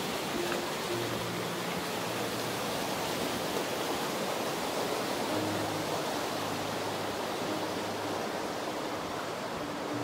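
Spring-swollen mountain creek rushing over rocks below a footbridge: a steady, even rush of water.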